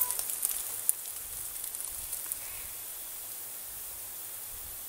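Rustling of leaves and dry leaf litter brushed against as the camera moves through undergrowth, fading out within the first second with a light knock, then a steady hiss.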